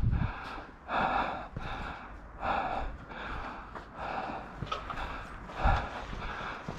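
Heavy, rhythmic breathing close to the microphone, a puff about every half second to second, from an airsoft player wearing the camera.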